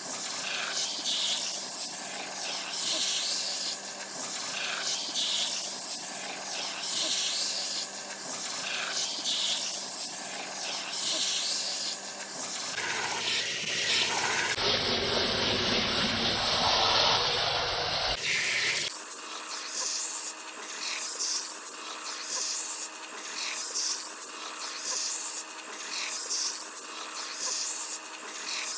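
Hair dryer blowing: a steady rush of air over a motor whine, swelling about every two seconds as it is swept back and forth. Around the middle the rush turns louder and deeper for several seconds, then the steady whine resumes at a different pitch.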